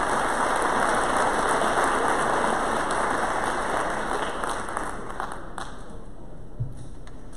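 Audience applauding, fading out about five or six seconds in.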